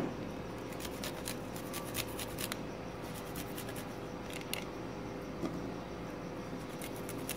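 Garlic cloves being grated on a flat metal hand grater: short, quick scraping strokes that come in irregular bursts.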